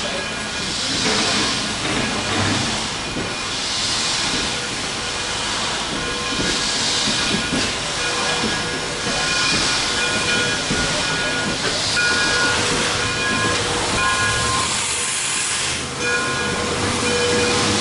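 Steam locomotive working slowly: a steady steam hiss with a hissing exhaust chuff about every second and a half, and thin whistling tones of escaping steam coming and going.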